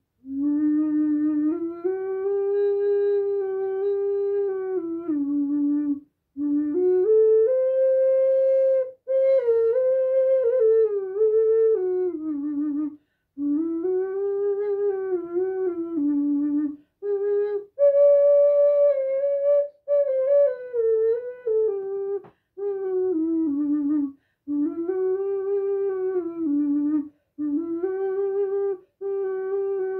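A horn-shaped six-hole diatonic ocarina in D, played solo: a slow single-line melody in phrases of a few seconds, with short breaks between them.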